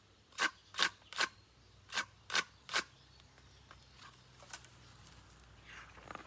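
Homemade guiro scraped in short rasping strokes, two quick groups of three, played as a munching sound for a giraffe eating leaves.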